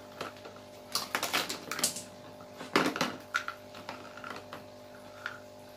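Plastic toy kitchen dishes and a plastic spoon clicking and clattering against each other in irregular light knocks.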